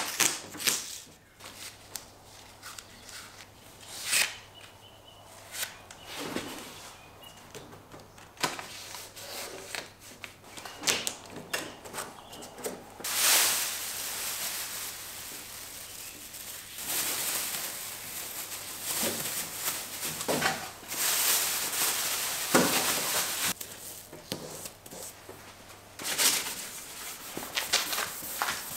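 Masking tape being pulled off the roll and pressed down in short rasps, then clear plastic sheeting rustling and crinkling as it is spread over a panel.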